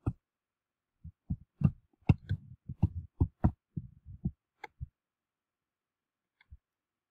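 Desk and mouse handling noise picked up by the recording microphone: a run of irregular, low, dull thumps and clicks, about a dozen of them, from about one second in to about five seconds in.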